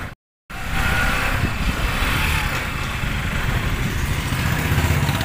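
Bajaj Pulsar NS200 motorcycle's single-cylinder engine running steadily while being ridden, with road and wind noise. The sound drops out completely for a moment just after the start at an edit cut.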